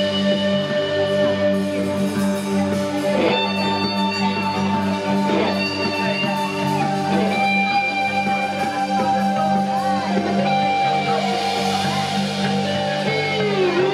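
Instrumental passage of a rock song: electric guitar holding long sustained notes over a steady low bass drone, with no singing.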